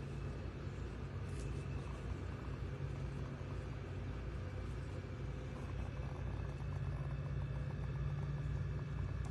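A steady low mechanical hum, engine-like, with a constant low tone over a background of noise.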